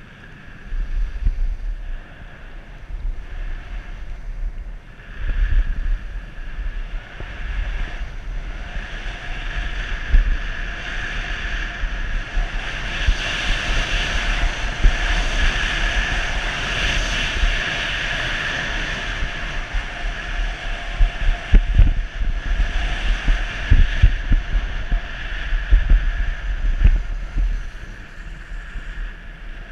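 Wind buffeting the microphone of a skier's action camera, over the steady hiss and scrape of skis running on packed snow. The hiss grows louder in the middle, and a few low thumps come in the second half.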